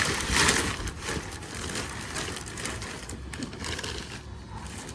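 Packing material rustling and crinkling as bare-root fruit trees are unwrapped, loudest in the first second and quieter after.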